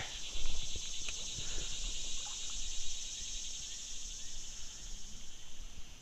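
Steady, high-pitched chorus of insects trilling in the trees, with a low rumble and a few faint ticks beneath it.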